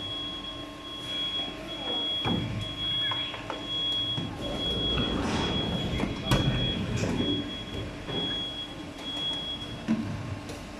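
Plastic injection moulding machine running, with a steady motor hum and a high electronic beep repeating about one and a half times a second that stops about ten seconds in. Knocks sound as the moulded part is taken out and the sliding safety gate is shut, the sharpest one a little past halfway.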